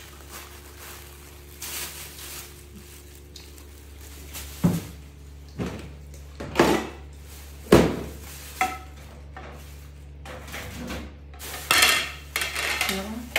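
Kitchen utensils and plastic dishware clattering as a monkey rummages through them on a tiled counter: a string of irregular knocks and rattles, with a steady low hum underneath.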